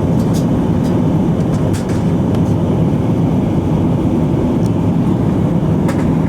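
Airbus A320 cabin noise in flight: a steady, deep rumble of engines and airflow, with a few faint ticks.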